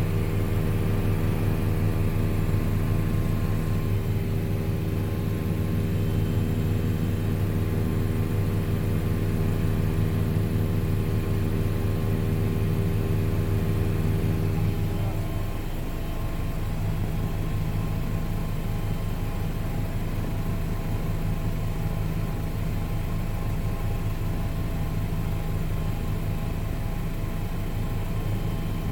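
Helicopter in flight, its rotor and engine making a steady low-pitched hum. About halfway through the sound gets slightly quieter and its tone shifts a little.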